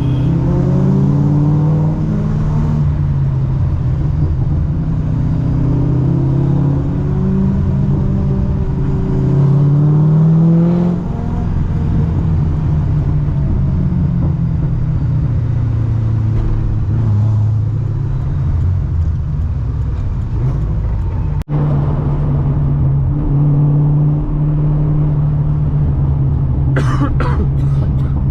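Supercharged LS3 V8 of a ProCharger-equipped Corvette C6 under way, revving up and falling back several times in the first ten seconds or so, then running steadily at cruise. A brief high-pitched sound comes near the end.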